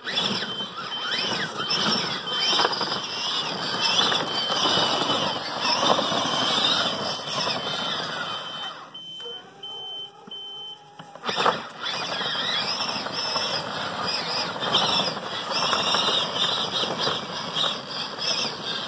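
A 24-volt electric ride-on toy truck, a converted Kid Trax Dodge Ram 4x4, driving and pushing snow with its V-plow. Its motors and the plow scrape and whine unevenly as it works. A high, regular beeping sounds through the first half and stops about ten seconds in.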